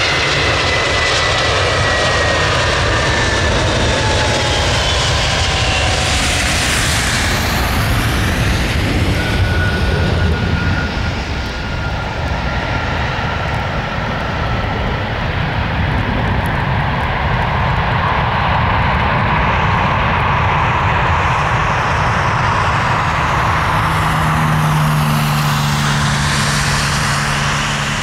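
Airbus A320 jet airliner landing. Its engine whine falls in pitch as it passes over a steady jet rumble, which peaks around touchdown and then carries on through the rollout. A low steady hum comes in near the end.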